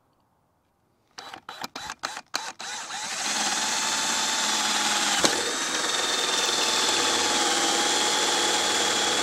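Cordless drill (Craftsman V20) started in a few short trigger bursts, then running steadily with a high whine as it bores a pilot hole through the car's sheet-metal body.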